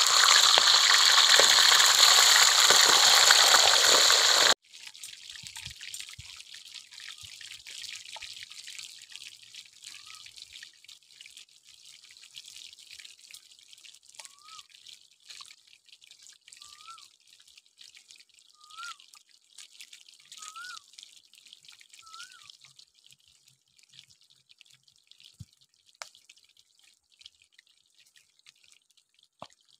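Fish frying in hot oil in a wok: a loud, steady sizzle that cuts off sharply about four and a half seconds in. After that a much fainter sizzle with small crackles, and a bird's short rising chirp repeated about every two seconds through the middle.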